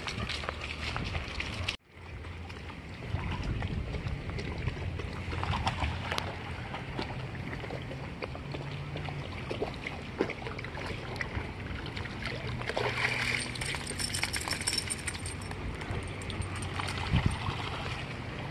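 A small dog paddling in a swimming pool, the water sloshing and gurgling, over a steady low rumble.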